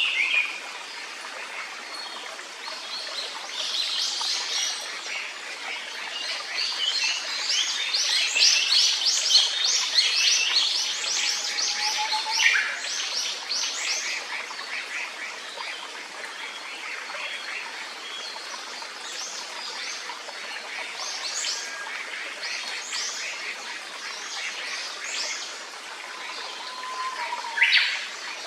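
Birds chirping in quick runs of short high notes, busiest in the first half and with a louder call near the end, over the steady rush of a clear stream.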